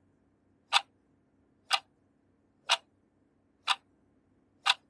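A clock ticking about once a second: five even ticks, all sounding alike, with no tick-tock difference between them.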